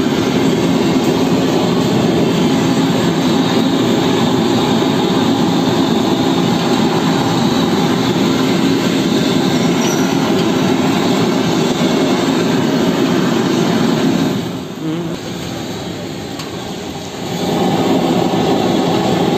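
Handheld gas blowtorch burning with a loud, steady hiss as its flame singes a plucked chicken's skin. It dies down about fourteen seconds in and comes back about three seconds later.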